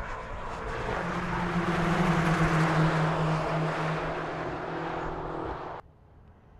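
A group of BMW X6 M SUVs passing at speed with their twin-turbo V8 engines running hard. The engines grow loud, are at their loudest about two seconds in, then ease slightly before the sound cuts off suddenly near the end.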